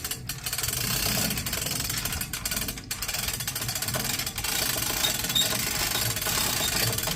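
Steady, rapid mechanical clatter of a tool turning long bolts to draw a furnace section down onto its bracket, with a few brief pauses.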